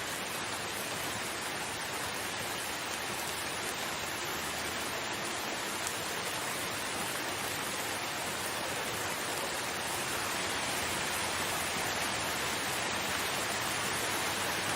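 Steady rain falling, an even hiss with no separate drops standing out, growing slightly louder about two-thirds of the way through.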